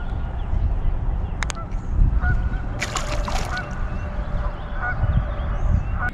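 Geese honking, with a burst of calls about three seconds in and shorter calls scattered before and after, over a low rumble of wind on the microphone.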